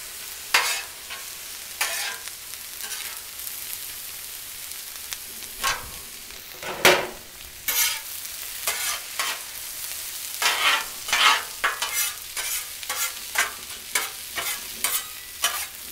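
Chicken pieces and sliced peppers and onions sizzling on a Blackstone steel flat-top griddle, with metal spatulas scraping and tapping across the cooktop again and again, more often in the second half.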